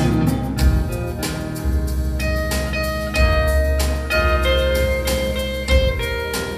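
Live blues band playing an instrumental passage: electric guitar over keyboard, a heavy bass line and drums keeping a steady beat.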